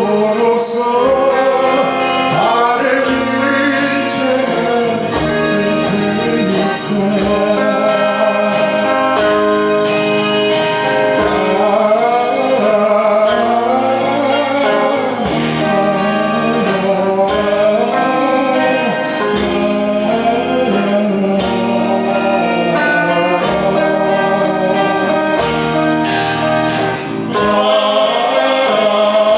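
Live band playing a song, a male voice singing the lead over guitar and band accompaniment.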